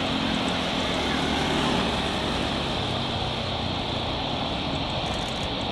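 Boeing 747-400F freighter on final approach, heard at a distance as a steady jet-engine noise with a faint low hum and no sudden changes.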